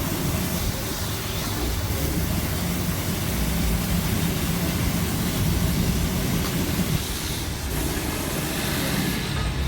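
Street traffic noise, with a motor vehicle's engine running close by, most prominent in the middle.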